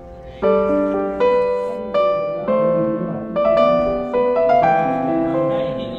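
Background piano music: a slow melody of struck notes and chords, each left to ring and fade, coming in about half a second in.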